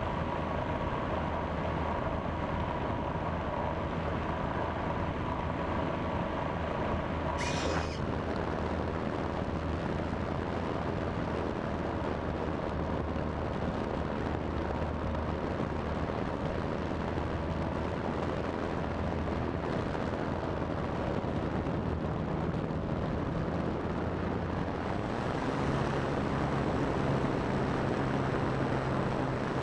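Airflow rushing over the onboard camera of an electric FPV RC airplane in flight, with the faint steady whine of its electric motor and propeller. A sharp click comes about eight seconds in, and a lower motor drone grows a little louder in the last few seconds as the throttle goes up.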